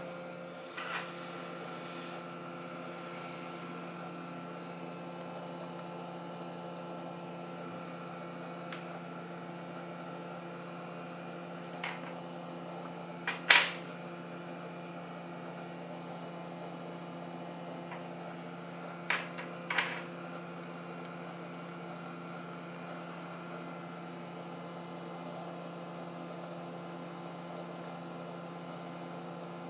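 Steady electric hum of repair-bench equipment running, with a few short sharp clicks of small tools on the board, the loudest about halfway through and a pair near two-thirds of the way.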